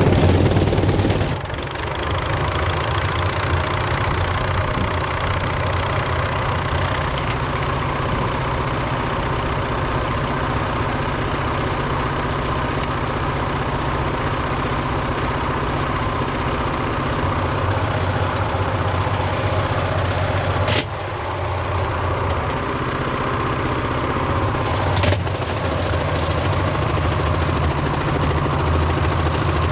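Washing machine running with bricks and loose metal in its drum: a steady loud churning rattle with a heavy pulsing thump. Two sharp knocks come near the end, a few seconds apart.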